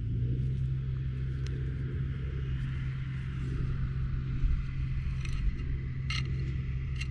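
A steady low mechanical hum, with a few light clicks and scrapes as soil is crumbled in the hand and a metal digging tool is handled near the end.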